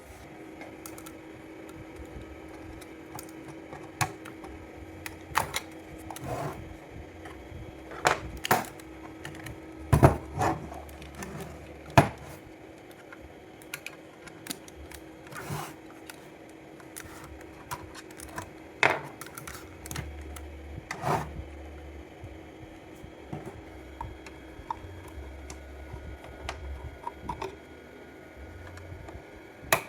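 Scattered clicks and knocks of small hard objects being handled, a few louder knocks among them, over a faint steady hum.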